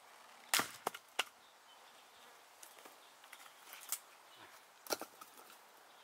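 Splitting maul striking a log on a wooden chopping block, a sharp crack about half a second in, followed by two quick knocks of wood, then another sharp strike near the end.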